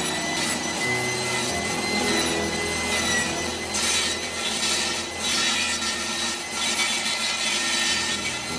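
Benchtop table saw running with a steady high whine while it trims the edge of a pallet-wood disc, which is turned by hand on a circle-cutting sled. Cutting noise rises and falls several times as the wood is fed past the blade.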